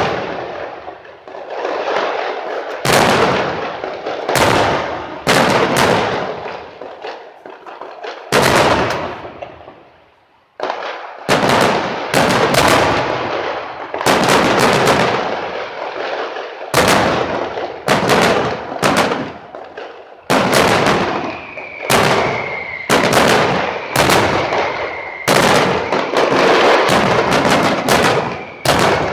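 Aerial fireworks shells bursting in a rapid series of about twenty loud bangs, each trailing off in echo. The bangs thin out to a brief lull about ten seconds in, then come thicker and faster.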